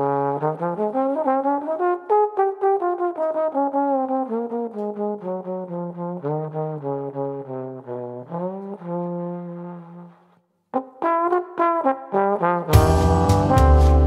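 Solo trombone playing a slow, smooth melody with upward slides between some notes. After a brief pause it plays a few more notes, and near the end a full backing comes in under it with deep bass and percussive hits.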